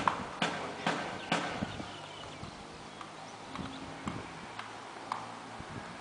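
Hard, sharp taps: a quick run of four about half a second apart near the start, then fainter scattered taps over a low steady background.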